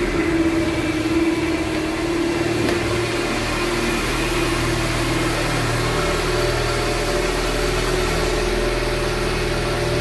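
Mercedes-Benz KE-Jetronic petrol engine running steadily just after a cold start, in its cold-start phase.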